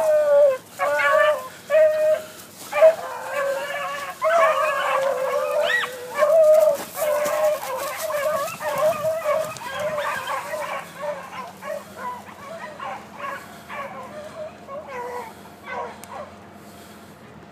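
A pack of young beagles baying and barking on the track of a cottontail rabbit, several voices crying over one another. Short separate barks in the first few seconds give way to steadier overlapping baying, which grows fainter over the second half.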